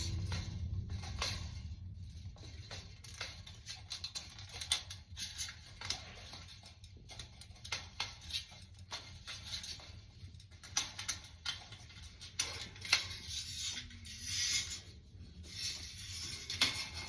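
Dryer heating element's coiled wire and sheet-metal heater housing being handled: irregular small metallic clicks, taps and scrapes as the spring coil is worked into its slots.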